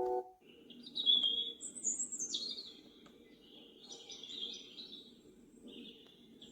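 Recorded birdsong playing as one of the sound machine's soothing sounds through the sunrise alarm clock's small speaker: chirps and trills over a soft low background hiss. It starts abruptly as the previous melody cuts off.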